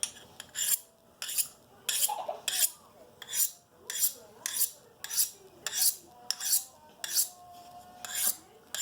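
A knife blade drawn again and again along a sharpening rod during freehand sharpening: quick scraping metal strokes, about two a second, alternating sides of the edge in an even rhythm.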